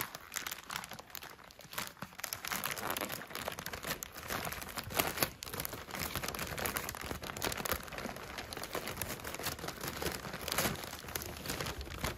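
Wrapping paper crinkling and crackling as hands pull open a gift-wrapped package, with a few louder crackles about five seconds in and near the end.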